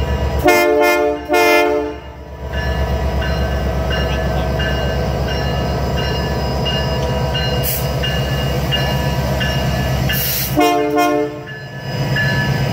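Diesel locomotive horn sounding a chord of several notes: two short blasts about a second in, then a longer blast near the end. Between the blasts is the steady rhythmic rumble of the locomotive's diesel engine as the train pulls past close by.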